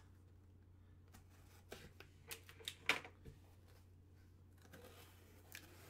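Box cutter slitting the sticker seal on a cardboard box: a few short scrapes and clicks about two seconds in, then faint rustling of the cardboard as the box is handled.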